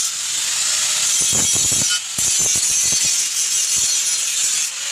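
Angle grinder grinding steel: a loud, continuous high hiss that dips briefly twice, with a few low knocks about a second and a half in.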